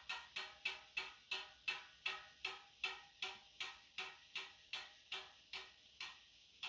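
Ratchet freehub of an Elitewheels Edge carbon bicycle wheel clicking as the wheel coasts freely, with sharp metallic ticks that slow steadily from about three a second to a little over two a second as it spins down. The last click comes near the end.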